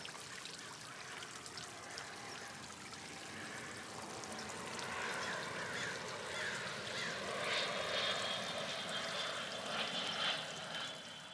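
Garden pond fountain splashing steadily, a little louder in the second half, with short chirping calls now and then.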